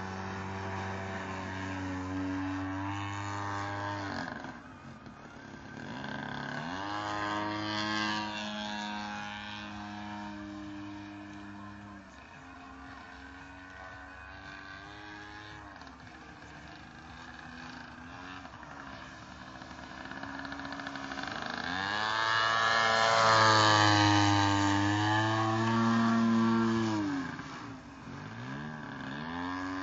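Single-cylinder two-stroke petrol engine (DLE 55cc) of a 2.2 m Sbach 342 radio-controlled aerobatic plane in flight, its pitch rising and falling with throttle and passes. The pitch drops sharply and the sound fades about four seconds in and again near the end. It is loudest about three quarters of the way through.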